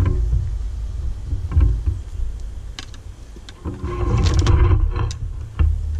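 Honeybees buzzing around an opened hive, over a low rumble of wind and handling on the microphone. A few sharp clicks and knocks come about three to four and a half seconds in, the loudest stretch.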